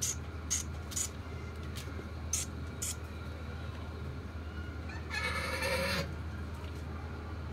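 An animal call lasting about a second, about five seconds in, with several short, high ticks in the first three seconds before it.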